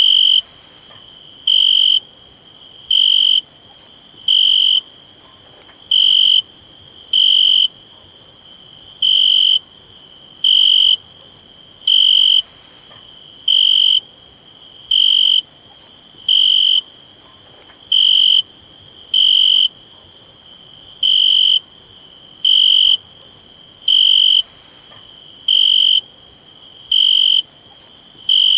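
A cricket chirping: short, high-pitched chirps of about half a second each, repeating roughly every one and a half seconds at a slightly uneven pace, over a steady high-pitched hiss.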